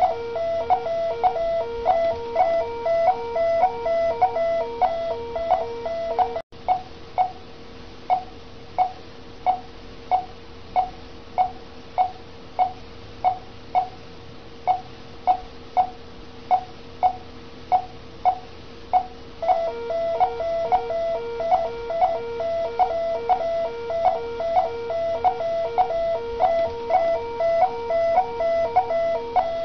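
Bedside patient monitor beeping in time with the heartbeat, about two short beeps a second, with a repeating alarm tone sounding over it for the first six seconds and again from about twenty seconds in.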